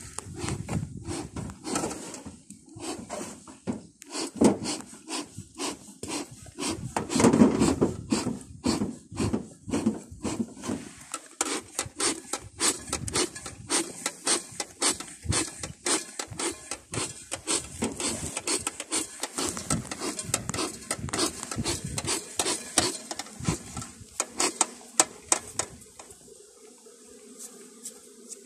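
Rapid scraping, rubbing and knocking of a beekeeper's hive tool and frames against a wooden hive box as honey frames are pried loose and lifted out, loudest about seven seconds in. Near the end the strokes die away, leaving a steady low hum of bees.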